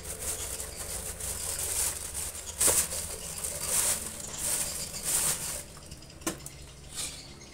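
Plastic bag of grain feed rustling in several bursts as feed is shaken out for a rooster, with a single sharp tap about six seconds in.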